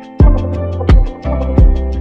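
Background music with a steady beat: a strong drum hit about every two-thirds of a second over a bass line and held chords.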